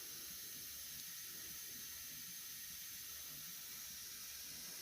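Faint, steady hiss with a weak low rumble beneath it and no distinct events: near-quiet background tone.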